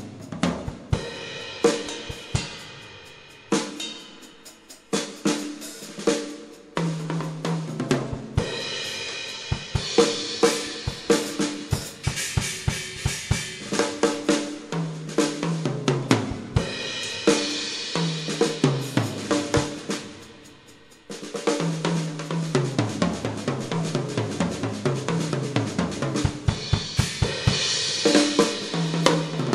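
A drum kit being played in a steady groove, with bass drum, snare, hi-hat and cymbals, over low pitched notes that step downward. The playing fades briefly about twenty seconds in, then starts again.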